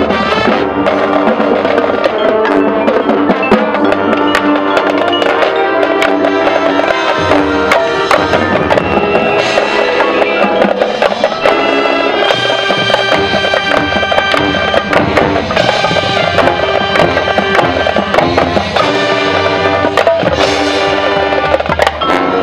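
Marching band playing, with brass over drums and mallet percussion, including long held chords about halfway through.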